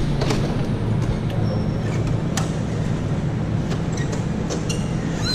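Go-kart engines idling, a steady low rumble, with a few short clicks.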